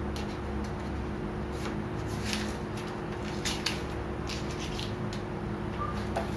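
Tape and backing paper being peeled and handled off a vinyl grill wrap, with soft scattered crackles and rustles, over a steady low electrical hum.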